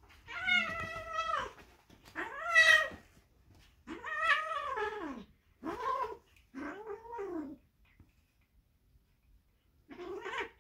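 Young kitten yowling: six drawn-out calls, the first ones higher and about a second long, the later ones shorter and lower with a falling pitch, as she wrestles and bites at her own tail.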